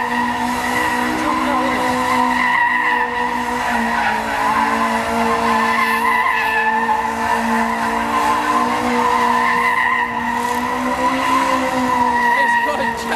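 Stunt car's engine held at steady revs with a continuous droning note, the pitch dipping slightly about four seconds in and again around ten seconds.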